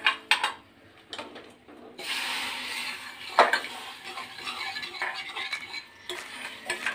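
Steel tadka pan and its pincer tongs clinking against the rim of a pressure cooker. Then hot oil tempering of fried onions and red chilli is poured into cooked toor dal, which sizzles with a steady hiss for about four seconds, with one sharp clink midway.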